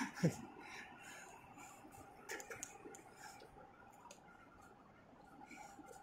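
A man's short laugh at the start, then faint scattered clicks and taps of footsteps on a rocky mountain trail, over a faint steady background hum.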